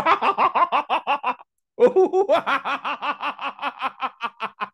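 A man laughing in two long runs of rapid, evenly paced ha-ha pulses, with a short catch of breath about a second and a half in, trailing off toward the end.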